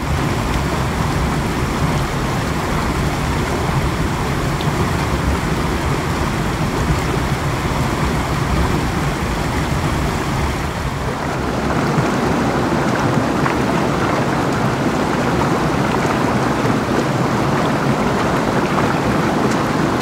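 Water flowing steadily over a small stream waterfall, a continuous even rush. About eleven seconds in the sound changes, becoming fuller and louder in the middle range.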